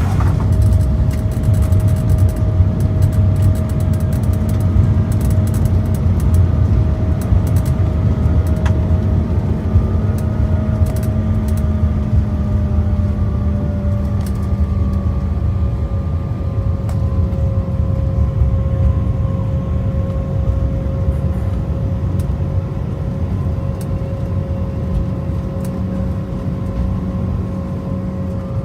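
Cabin noise of a British Airways Embraer E190's turbofan engines after landing: a steady, loud rumble with an engine whine that slowly drops in pitch as the jet slows. Light rattles and ticks come through in the first several seconds.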